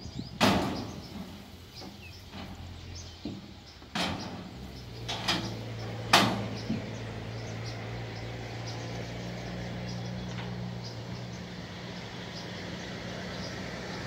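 Several loud bangs, the loudest near the start and about six seconds in, then the engine of a homemade rice harvester settles into a steady low hum.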